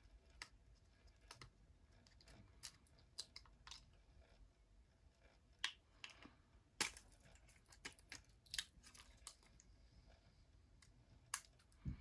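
Near silence broken by scattered faint clicks and taps of small iPod parts being handled and pried apart, as the old click wheel's cable is unplugged from a 4th-generation iPod.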